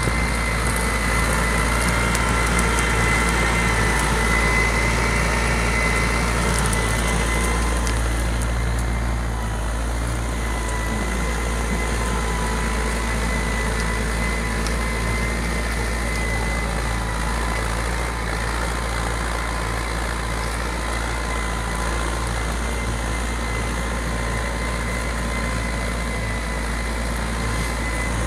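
IMT 587 tractor's diesel engine running steadily under load as it pulls a two-furrow plough through the soil, with a steady whine in the mix.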